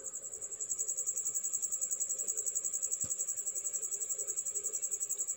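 A high-pitched insect trill, pulsing rapidly and evenly without a break, with one faint click about three seconds in.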